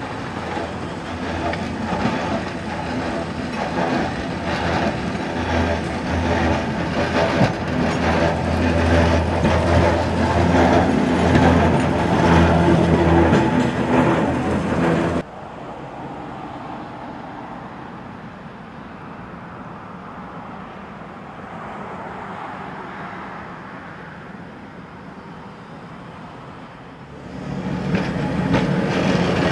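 Rail vehicles running on track, with a loud steady mechanical hum and wheel noise. The sound cuts off suddenly about halfway through to a quieter rumble. Near the end a vintage tram's running hum rises again.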